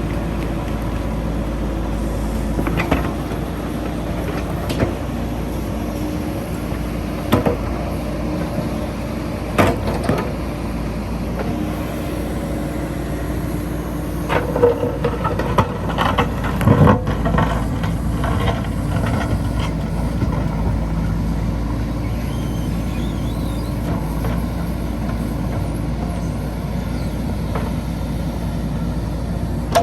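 A JCB 3DX backhoe loader's diesel engine runs steadily, with scattered knocks and clanks from the machine, most of them around the middle.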